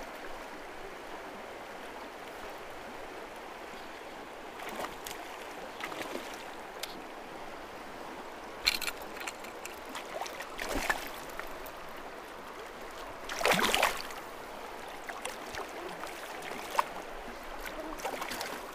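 River water flowing steadily, with a few brief louder splashy noises about nine, eleven and thirteen and a half seconds in, the last the loudest.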